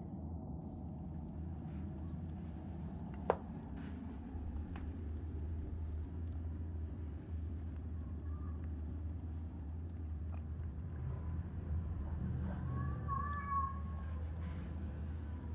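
A steady low hum runs throughout, with a single sharp click about three seconds in. Near the end a cat gives a couple of short meows over the hum.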